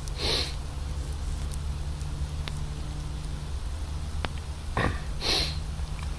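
Campfire crackling, with scattered sharp ticks and pops over a steady low rumble. Two short hissing rushes come through, one right at the start and one near the end.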